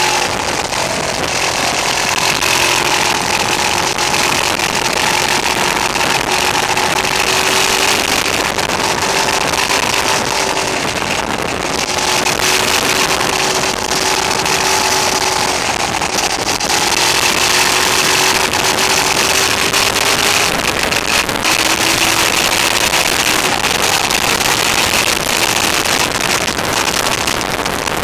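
Motorcycle engine running at road speed, its note breaking off and picking up again several times, under a heavy rush of wind over the on-board camera's microphone. The camera's recording level was set too high, so the sound is harsh and overloaded.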